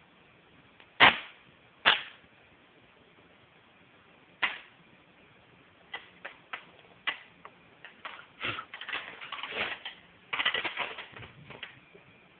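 Electrical sparks from an ultracapacitor bank being shorted for a fast discharge. Two sharp snaps come about a second in and a second later, then a single snap. Scattered snaps follow, and crackling runs through the last few seconds.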